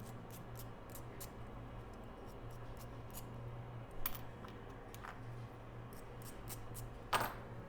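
Scattered light clicks and taps of small tools handling parts on a repair bench, with a louder tap about four seconds in and another near the end, over a steady low hum.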